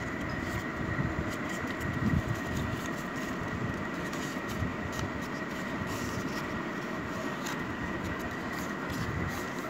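Steady background hum with a thin, high, constant whine, and faint crinkles and taps of paper being creased by hand.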